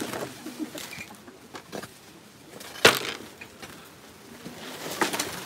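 Long-handled hoes chopping and scraping into loose soil as a grave is filled in: a sharp strike about three seconds in, the loudest, and a few lighter strikes near the end.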